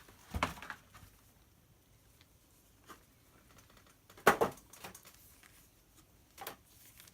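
Cardboard trading-card box and packs being handled: three short knocks and rustles, the loudest about four seconds in.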